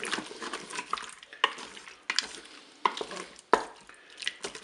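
Wooden spatula stirring chunks of carrot and diced ham in a creamy sauce in a Cookeo multicooker's bowl: wet scraping and squelching, with a few sharp knocks of the spatula against the bowl, the loudest about three and a half seconds in.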